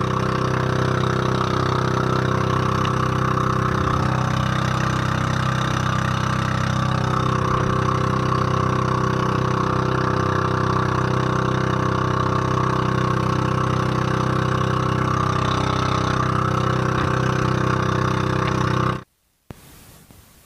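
The engine of a motorized outrigger boat (bangka) running at a steady, even speed. It cuts off abruptly near the end.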